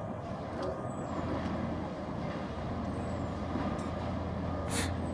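Diesel engine of heavy demolition machinery running steadily with a low drone, with a short sharp noise near the end.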